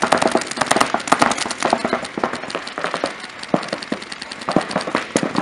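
Paintball markers firing rapid strings of shots: a dense rattle of pops in the first second or so, thinning to scattered shots with a few sharper single cracks later.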